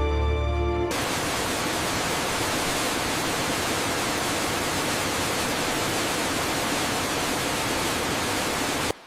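Steady, even rushing of a waterfall, starting abruptly about a second in as music stops and cutting off suddenly near the end.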